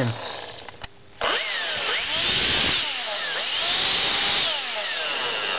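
Motor of a vintage Black & Decker Dustbuster hand vacuum, rewired to run on 12 volts from a jump-starter pack. It winds down almost to a stop, then is switched back on about a second in and runs fast with a whine that rises and falls. This motor draws more than 12 amps.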